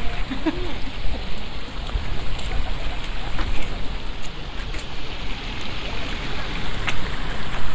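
Steady outdoor rushing noise, with a faint voice about half a second in and scattered light clicks through it.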